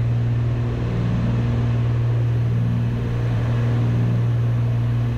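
Cessna 310's two piston engines and propellers droning steadily in cruise flight, heard in the cabin, with a slow regular throb about once a second.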